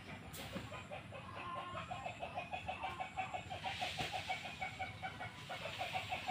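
Chicken clucking: a rapid run of short, evenly repeated notes, about six a second, starting about two seconds in.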